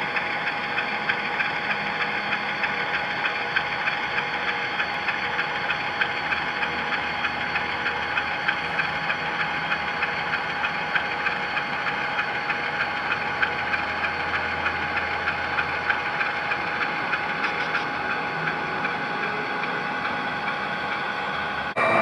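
HO scale model diesel locomotives (an SD50 and a Dash 9) running past with their onboard diesel engine sound: a steady engine drone with a regular light clicking.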